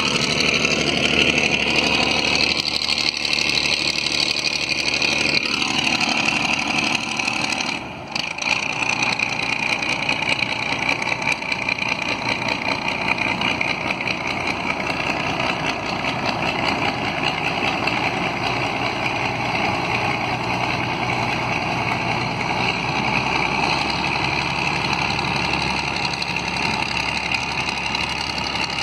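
River ferry's Mercedes-Benz engine running with a steady rumble; its pitch falls and the sound dips briefly about eight seconds in, then it picks up and runs steadily again.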